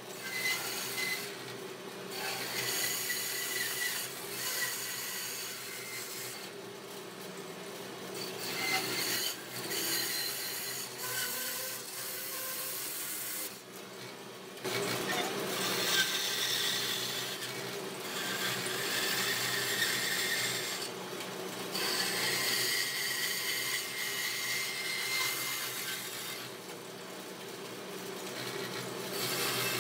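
Bandsaw running with its blade cutting curves through a thick wooden block, a steady whine under the rasp of the cut, which rises and falls as the wood is fed, with a few brief lulls.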